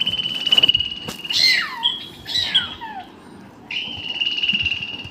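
High, squawking animal calls played through a small speaker: a long held whistle-like note, two short falling squawks, then another long held note.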